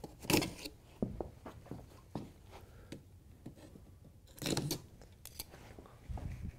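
Scissors cutting through packing tape on a cardboard box: a run of short snips and scrapes, a pause about three seconds in, then more cutting and handling.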